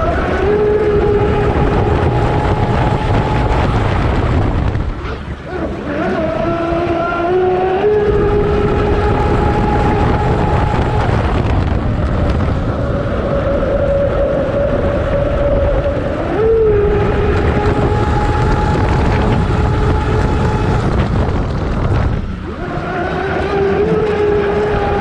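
Brushless electric motor of a Zelos 48 RC catamaran converted to 10S, running at speed with a steady whine over the rush of water along the hull. The whine shifts pitch in steps as the throttle changes. It drops out briefly about five seconds in and again near the end, then comes back.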